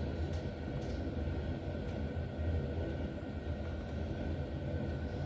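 Steady low background rumble, with two faint light ticks in the first second.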